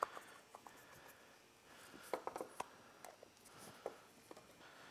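Faint, scattered clicks and light taps of a carburetor's throttle-cable cover being handled and fitted by gloved hands, with a quick cluster of them about two seconds in.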